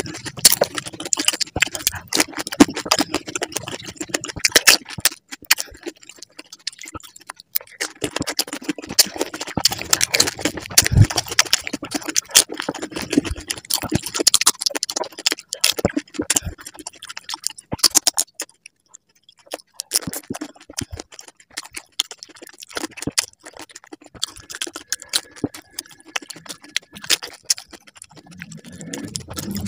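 Close-miked eating: crisp panipuri shells cracking and crunching, and chewing of the puris with raw green chillies, heard as a dense run of sharp crackles and clicks. It drops off briefly about two-thirds of the way through.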